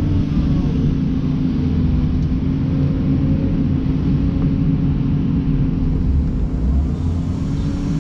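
Komatsu PC290 excavator's diesel engine and hydraulics running steadily with a low, even hum, heard from inside the cab as the loaded bucket swings over to the pile and is dumped.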